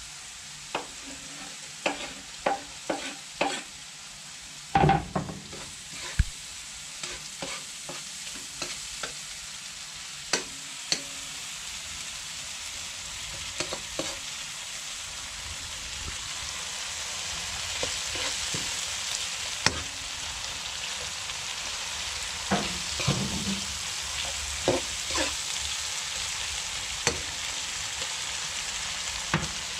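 Clinks and knocks as chopped tomatoes are tipped from a cutting board into a hot pan. A metal spoon then scrapes and clinks against the ceramic-lined pan, stirring them into onions and seasoning frying in oil. The sizzle grows louder over the first half and then stays steady.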